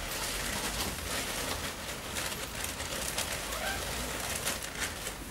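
Rustling and crackling of paper pages being turned, many small rustles close together, over a steady low hum.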